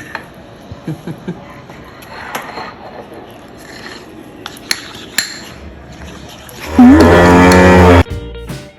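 Faint clicks and taps, then about seven seconds in a loud cow moo lasting about a second, cutting off abruptly.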